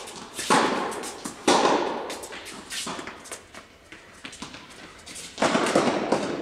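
Tennis ball struck by rackets and bouncing on an indoor hard court, a handful of sharp pops, each ringing out in a long echo in the big hall. The loudest come about half a second and a second and a half in, with another near the end.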